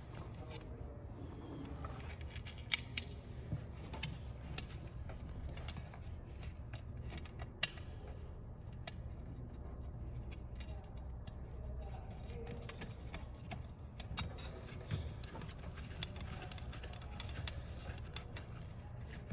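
Faint scattered clicks and rustling as hands work nylon webbing and a plastic book screw into the slot of a metal dive backplate, over a steady low hum.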